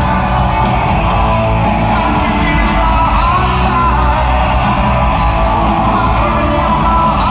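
Live rock band playing loudly, a male singer's voice carried over electric guitar, heard from among the audience.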